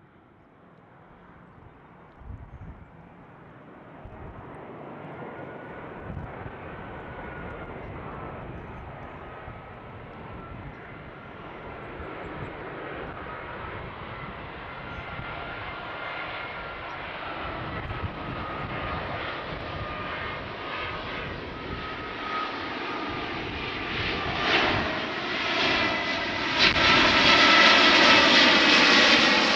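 Jet airliner's engines growing steadily louder as the plane approaches and passes close by, with a high fan whine that slowly falls in pitch. The sound peaks near the end.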